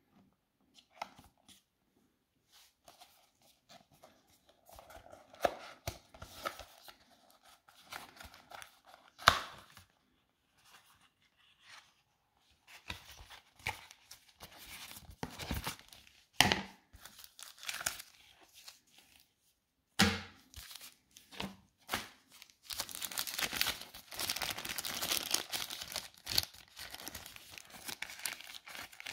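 Handling noise of tearing and crinkling, with irregular clicks and a few louder knocks, then a longer stretch of continuous rustling near the end.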